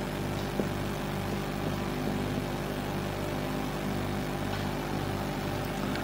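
Steady low hum of background room tone with a slow pulsing in it, and one faint tick about half a second in.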